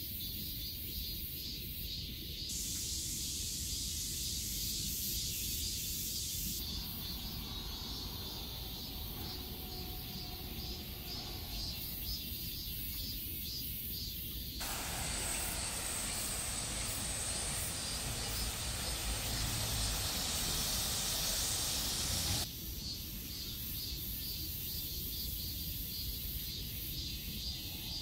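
Steady outdoor hissing ambience with no clear single source, changing abruptly in character several times. It is loudest and fullest for several seconds in the middle.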